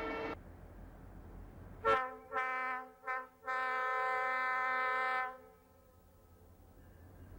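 Diesel locomotive air horn sounding four blasts of a multi-note chord, the last the longest at well over a second. The low rumble of an approaching freight train follows and slowly grows. At the very start, another horn chord cuts off abruptly.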